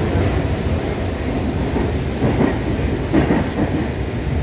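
Rumble of a moving Toshiba-built metro train heard from inside the passenger car: a steady low running noise of wheels and car body, with two louder surges a little past the middle.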